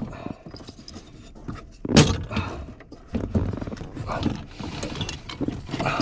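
Metal clunks and knocks of a steel clutch pedal assembly being worked into place under a car's dashboard, the sharpest knock about two seconds in.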